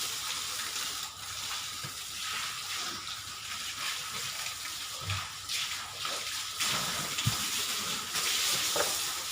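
Water running, a steady hiss with a few faint knocks.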